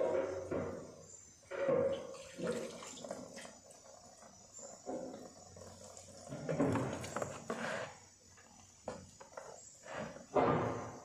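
Liquid poured from a small glass jar over a sheet of embossed silver, splashing and running off into a plastic basin in irregular gushes. The loudest pours come at the start, around two seconds in, for a stretch in the middle and near the end.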